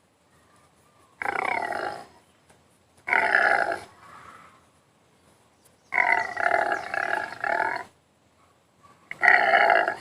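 A recorded animal sound effect playing back: four drawn-out animal calls about a second each, with pauses between, the third longer and wavering in pulses.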